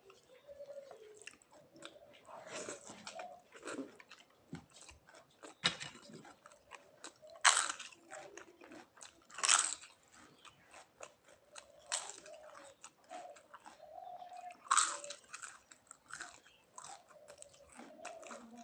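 Close-miked eating of crisp food: continual chewing with a run of small crackles, broken by several loud crunching bites.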